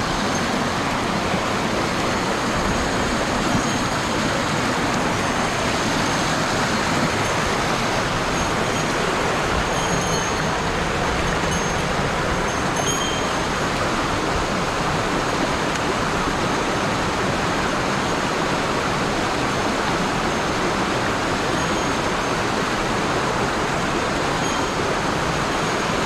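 Mountain headwater stream rushing over rocks and small cascades in a steady, unbroken wash of water noise; the stream is running high from rain.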